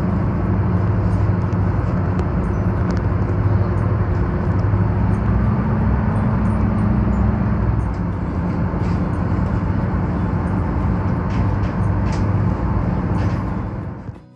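A tour boat's engine running with a steady low hum, over a constant rush of water and wind; it cuts off sharply near the end.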